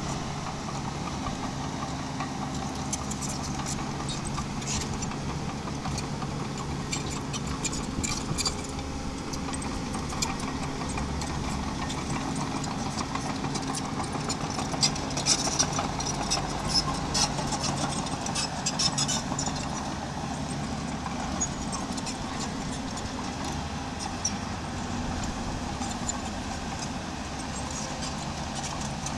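Engine of a miniature bulldozer running steadily while it works, with scattered sharp clicks and rattles, densest from about eight to nineteen seconds in.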